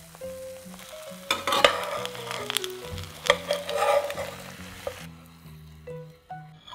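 Thin-sliced potato galette frying in oil in a nonstick pan: a hissing sizzle that picks up about a second in, with sharp clicks and scrapes as a silicone spatula and metal spoon slide under it and lift it out. The sizzling stops about five seconds in. Light background music with plucked notes runs underneath.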